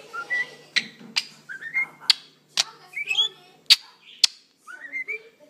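Budgerigar chattering close to the microphone: sharp clicks mixed with short chirps that rise in pitch.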